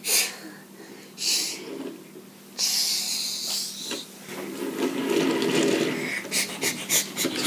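Small diecast toy trains being handled and rolled, with short breathy hisses and a quick run of small clicks near the end.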